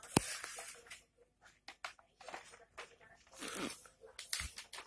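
Plastic packaging crinkling and rustling as parts are handled, with a sharp click right at the start and scattered small clicks.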